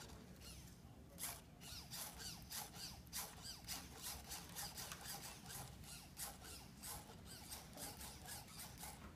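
Small hobby servo motors whirring in many short, chirpy bursts, each rising and falling quickly in pitch, as they pull the strings that bend the fingers of an artificial hand.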